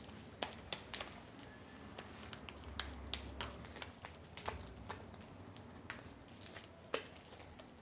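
Sticky homemade glue slime being kneaded and squeezed by hand, giving irregular small clicks and soft squelches as it pulls off the fingers.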